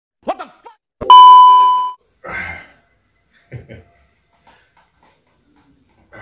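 A loud bell-like ding that rings on one steady pitch for about a second and fades, just after a short gliding sound. A brief rustle and a few soft clicks follow.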